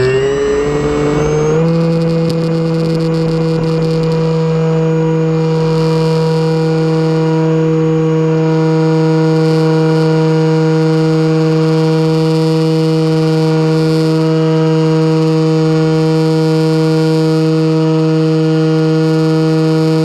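Electric motor and propeller of an RC trainer plane, heard close up from an onboard camera: the whine rises in pitch over the first second or two as the throttle is opened for takeoff, then holds a steady multi-tone whine in flight.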